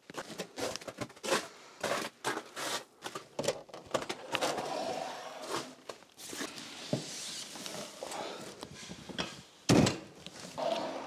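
Footsteps of rubber boots in snow, then a door and steps on a concrete floor, and a loud thump about ten seconds in as a cardboard box is set down on a wooden countertop.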